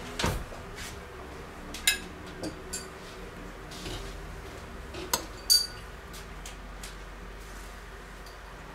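A spoon clinking against a steel pot and a plate as cooked rice is scooped out: a handful of scattered clinks and scrapes, the sharpest about two seconds and five seconds in.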